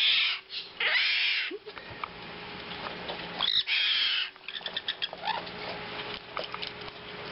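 Baby conures giving harsh, raspy squawks: three loud ones in the first four seconds or so, with softer short calls and quick clicks in between.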